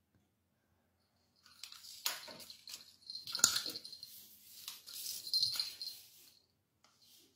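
Small plastic bottle cap clattering and skittering across a hard tiled floor as a kitten bats and chases it: a quick flurry of clicks and knocks from about a second and a half in to about six seconds, the loudest strike about three and a half seconds in, then a couple of faint clicks near the end.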